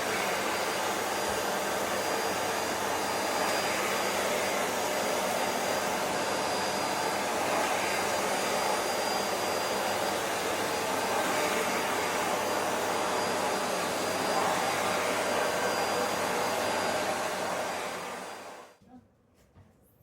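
Vacuum cleaner running steadily with a rushing whoosh of air, as an air-conditioner filter is cleaned. It is switched off and winds down near the end.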